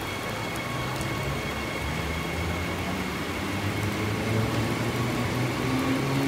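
Steady rain falling, an even hiss. Under it runs a low mechanical hum that rises in pitch and gets a little louder near the end, like an electric train starting to move.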